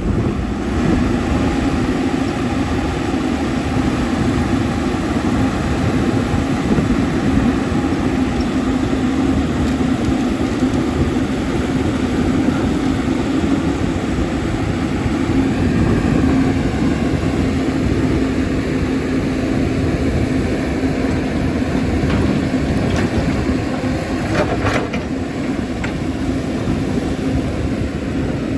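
CAT 320D excavator's six-cylinder diesel engine running steadily with a constant hum while working, with a few short knocks a little before the end.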